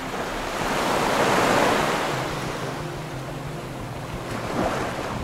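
Sea water washing in against the shore: a wash of surf that swells to a peak about a second and a half in, then slowly fades.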